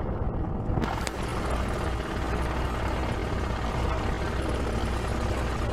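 Cabin noise of a light aircraft rolling down a runway: a steady low drone under rushing noise, which grows brighter and hissier about a second in.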